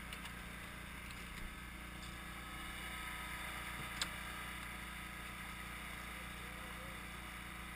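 Steady low hum of a motor running on a bowfishing boat, with one sharp click about four seconds in.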